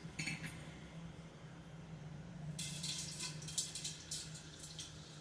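Edible gum (gond) frying in hot ghee, sizzling and crackling; the sizzle grows denser a little past halfway. A low steady hum runs underneath.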